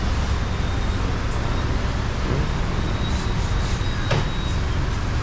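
Steady low mechanical rumble with a hiss, with a brief rub of a cloth wiped over a plastic engine cover about four seconds in.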